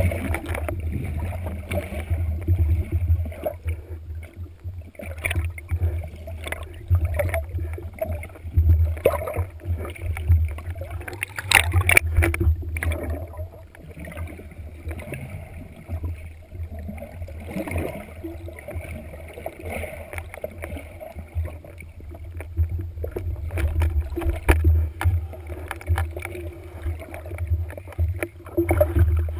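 Underwater noise picked up by a camera mounted on a wooden speargun: a continuous low rumble of water moving against the housing, with scattered clicks and knocks, loudest about twelve seconds in.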